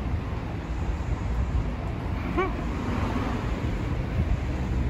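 Steady low rumble of city traffic. About halfway through there is a single short, high-pitched call.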